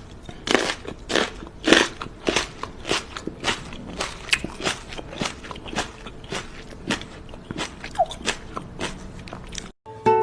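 Chewing of something crunchy: a rapid run of crisp crunches, about two to three a second, loudest in the first few seconds. The crunching cuts off abruptly just before the end.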